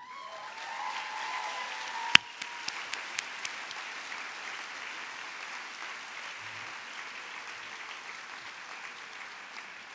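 A large audience applauding, easing off slowly, with one sharp click about two seconds in.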